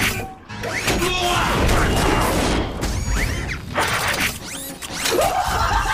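Cartoon sound effects of a robot's head glitching, Blitzwing's faces switching over and over: rapid mechanical clicking and clanking, with swooping electronic pitch glides rising and falling several times, over background music.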